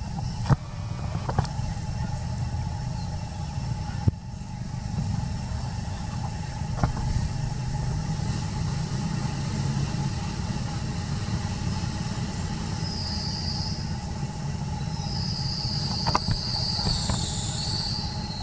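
Steady low rumble of motor traffic, with a few sharp clicks and high chirping over the last few seconds.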